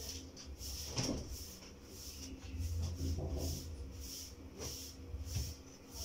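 Clothes being handled and put into the wash tub of a twin-tub washing machine, rustling, with a sharp knock about a second in.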